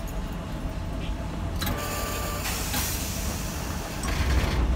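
Hankai Tramway streetcar running along street track, heard from inside the car as a steady low rumble of wheels and motor. A brief high tone sounds about two seconds in, and the rumble grows louder near the end.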